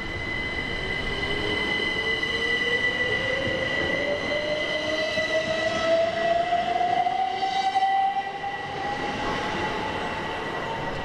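Class 387 Electrostar electric multiple unit accelerating away from a platform. Its traction motor whine rises smoothly and steadily in pitch as it picks up speed, over a steady high-pitched whine and rolling noise.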